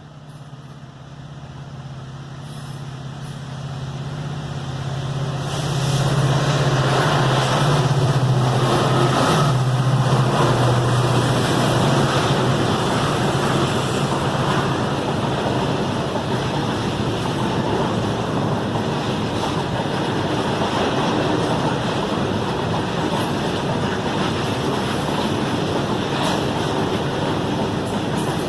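Freight train approaching and passing close by: the locomotive's low hum grows loud over about six seconds and fades after about ten, followed by the steady rumble of wagons rolling past.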